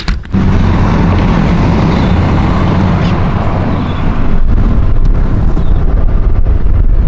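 Loud, steady running of a snow-plowing vehicle's engine with heavy low rumble and rushing noise, cutting in abruptly just after the start and rising slightly about four seconds in.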